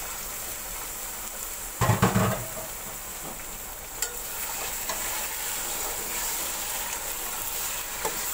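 Raw chicken pieces sizzling in hot ghee in a large aluminium pot, with a steady hiss. A metal spoon knocks and scrapes against the pot as the chicken is stirred, loudest in a cluster of knocks about two seconds in.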